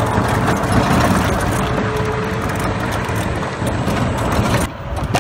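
Golf cart driving along a gravel path: its motor running steadily under the rumble and crunch of the tyres on gravel. The noise drops suddenly near the end.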